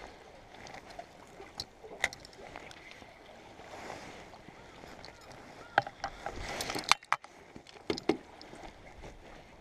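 Sea water lapping gently against concrete breakwater tetrapods, with scattered sharp clicks and knocks from the fishing rod and reel being handled, a few about two seconds in and a cluster between about six and eight seconds in.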